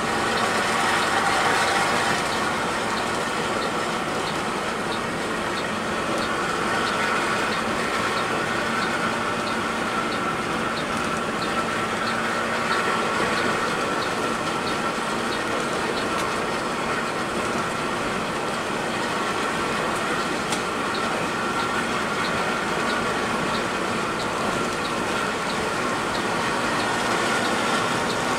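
Steady running noise of a Mercedes-Benz 1626 coach on the move, engine and road noise heard from inside, with a light ticking that repeats at an even pace.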